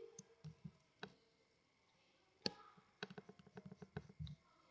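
Faint, scattered clicks and pops of a sticky white-glue slime being squeezed and stretched by hand. There is a single pop about a second in, another about halfway, and then a run of several quick pops near the end.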